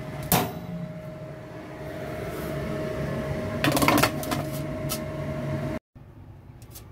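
Oven fan humming steadily with a held tone, while a metal baking tray clanks as it is pulled out about a third of a second in and knocks a few times as it is set down about four seconds in. The hum cuts off abruptly near the end, leaving quieter handling.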